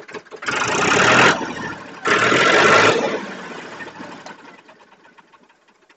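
Powertrac 439 DS Plus tractor's three-cylinder diesel engine revved up twice, then dying away to near quiet. The engine runs smoothly, which the seller offers as a sign of its good running condition.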